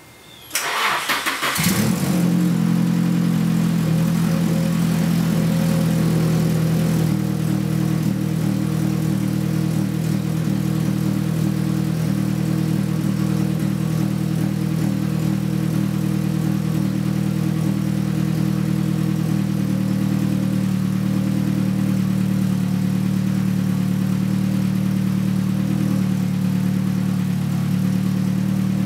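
Nissan SR20DET turbocharged four-cylinder engine cranked by its starter, catching about a second and a half in, then idling steadily.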